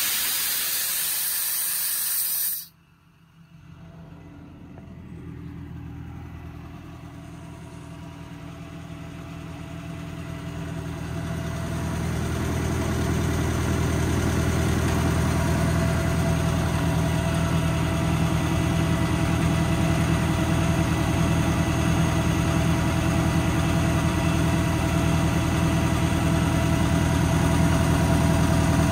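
Compressed air hissing out of the service-body air tank's drain valve for under three seconds, cutting off abruptly as the valve is closed. Then the IMT hydraulic air compressor's steady hum builds up over about ten seconds and holds as it refills the tank.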